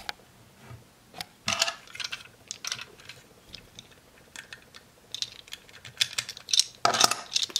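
Hard plastic parts of a DX Go-Buster Oh transforming robot toy clicking and clattering as the truck's wheels and cab pieces are handled and fitted back together, with a burst of clicks about a second and a half in and another near the end.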